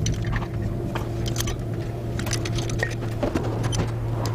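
Workshop noise during engine reassembly: a steady low hum with scattered sharp clicks and taps of tools on metal.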